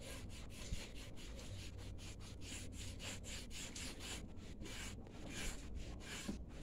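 A cloth rubbing wood stain back and forth over a painted wooden board: a quick run of scrubbing strokes, about four or five a second.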